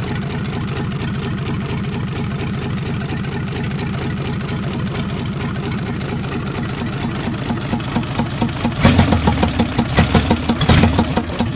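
Isuzu 6BD1 5.7-litre six-cylinder diesel engine running on a stand with its rocker cover off, a steady rapid diesel clatter. About nine seconds in it gets much louder in uneven surges for the last few seconds.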